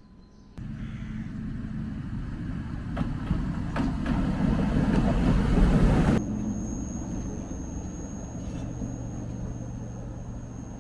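Vehicle running: a rumbling, rushing passage that builds for about five seconds, then cuts suddenly to a steadier hum with a thin, high, steady whine.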